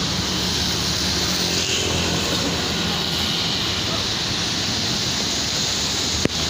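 Large diesel coach engine idling steadily under a constant hiss. A single sharp click sounds about six seconds in.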